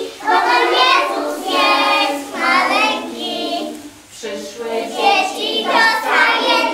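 A group of young preschool children singing a Christmas carol together, in phrases with a short pause for breath about four seconds in.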